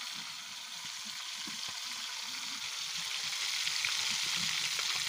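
Small catfish deep-frying in a pan of hot oil: a steady, dense sizzle of bubbling oil, growing a little louder toward the end.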